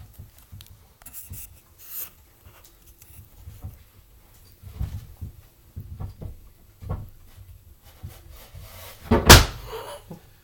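Scattered light knocks and rubbing as bookshelf parts and hand tools are handled, with one loud thump about nine seconds in.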